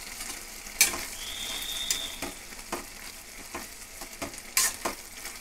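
Chopped tomatoes and onions sizzling in a nonstick kadai while a spatula stirs them, knocking and scraping against the pan several times. A thin high tone sounds briefly about a second in.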